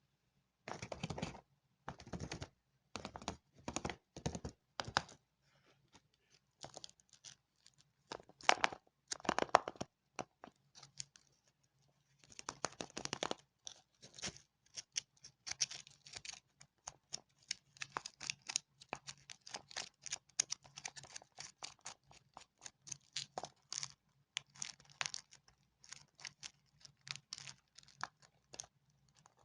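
Candy wrappers being unwrapped by hand, foil and plastic crinkling and tearing. Separate handfuls of rustling at first, then almost continuous crinkling from about twelve seconds in.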